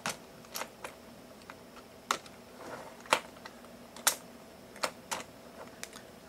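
Irregular sharp clicks and taps of hard plastic, about eight in six seconds, the loudest about three and four seconds in. They come from the 3D-printed Osprey prosthetic hand's finger hinges and curved knuckle pin as the pin is worked into place through the hinges.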